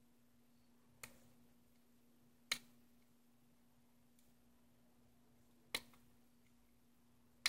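Four sharp, unevenly spaced clicks of a thin metal pick tool slipping and catching against a smartwatch's strap lug and spring bar as it is pried at to free the band, over a faint steady hum.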